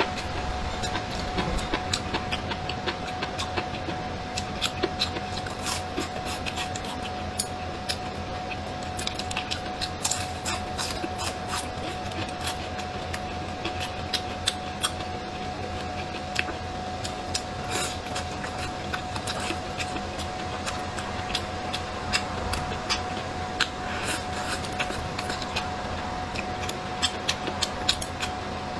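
Close-miked chewing of food, with many irregular sharp clicks and crackles from the mouth, over a steady background hum.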